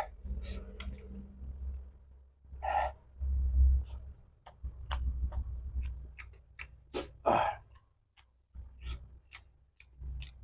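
Close-up mouth sounds of a man eating: wet chewing clicks and three loud gasping breaths and sighs through the mouth, a reaction to the heat of very spicy raw chili sambal.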